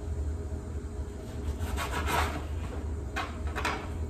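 Kitchen knife slicing tomatoes into wedges on a cutting board: a few scraping, drawn strokes of the blade through the fruit onto the board, about two seconds in and twice more near the end.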